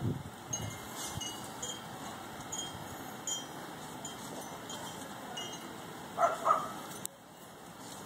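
Boston terrier gnawing at a whole green apple held between her paws, with two short, louder bites about six seconds in. Faint high tinkling tones, like chimes, sound on and off throughout.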